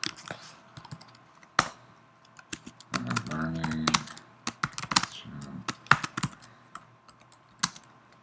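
Keystrokes on a computer keyboard, typing a line of code in quick irregular clicks, with a brief murmured voice about three seconds in.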